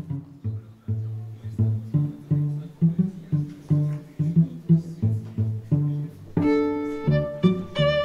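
Background music: a steady rhythm of low notes, with higher held notes joining about six seconds in.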